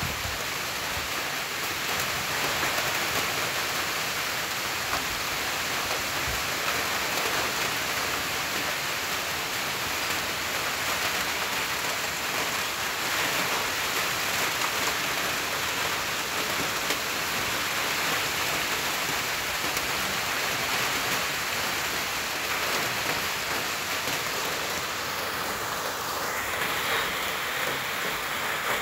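Steady rain falling on a flat concrete rooftop and splashing into the thin layer of standing water on it.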